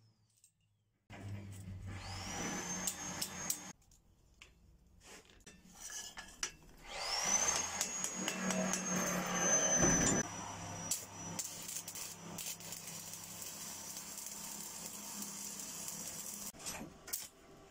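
Angle grinder run in two short bursts, its whine rising each time as it spins up. Then a steady crackling hiss of arc welding as the stacked steel billet is welded together.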